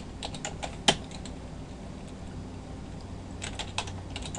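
Typing on a computer keyboard: a quick run of keystrokes with one louder key press about a second in, a pause of about two seconds, then another quick run of keystrokes near the end.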